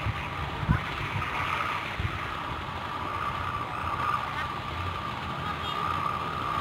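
Wind buffeting the microphone in a low, uneven rumble, with a steady high-pitched hum underneath and a single thump a little under a second in.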